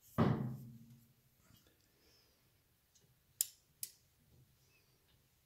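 A dull knock just after the start that fades over about a second, then two short sharp clicks about half a second apart, from a click-type torque wrench set at 60 foot-pounds being pulled on a cylinder head bolt of a 1940 Harley-Davidson UH flathead V-twin during a head retorque.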